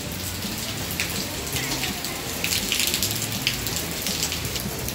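Steady rain falling, with many sharp ticks of single drops landing.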